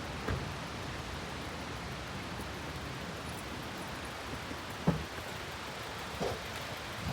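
Steady rush of a waterfall's falling water, with three brief low bumps.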